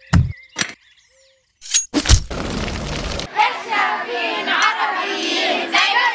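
A few sharp booming hits in the first second, a loud rushing burst about two seconds in, then a crowd of children's voices shouting together from just past three seconds.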